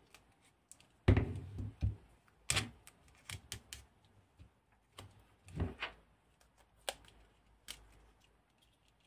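Handling noises of a lithium-ion 18650 battery pack in plastic cell holders being wrapped in black electrical tape: irregular clicks, taps and knocks, with louder knocks about a second in, at about two and a half seconds and at about five and a half seconds.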